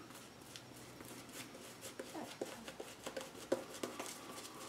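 Shaving brush working soap lather onto the face for a second pass: faint swishing with soft, irregular clicks.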